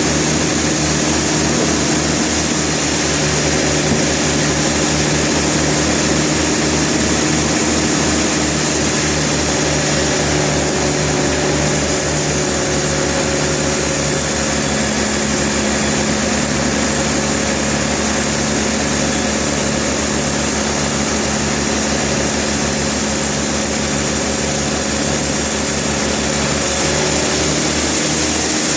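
Sawmill machinery running steadily: a constant motor drone with a pulsing low hum that shifts its beat about halfway through.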